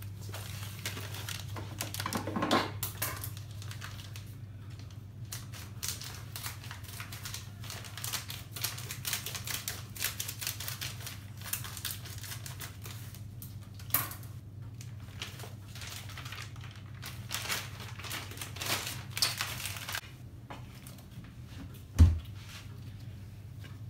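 Plastic packet of pastry wrappers being snipped open with scissors and handled: a run of crinkling, rustling and small clicks. A dull thump comes near the end, over a steady low hum.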